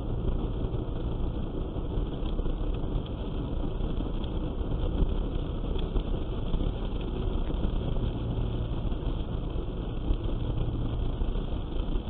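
Steady road and engine noise inside a car cruising at about 85 km/h on a snow-covered road, a continuous low rumble with no distinct events, heard through the dashcam's microphone in the cabin.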